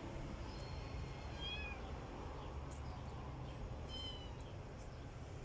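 Kittens mewing: a few short, high-pitched mews about a second in and another about four seconds in.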